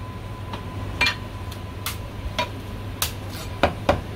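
Chinese cleaver chopping roast goose on a chopping block: a series of sharp, irregular knocks that come closer together near the end.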